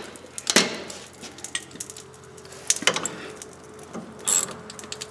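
Scattered sharp metallic clinks and knocks from hand tools on a steel ball-joint puller being tightened on a seized drag-link taper, the loudest about half a second in.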